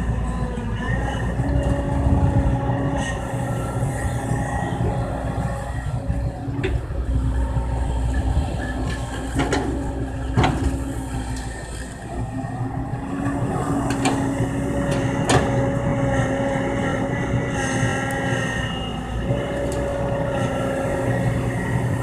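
Heavy diesel machinery running steadily: an excavator's engine at work, its note shifting a few times, with a handful of sharp metallic clanks around the middle.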